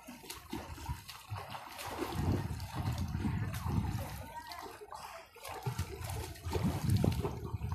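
Sea water lapping and sloshing against shoreline rocks in irregular surges.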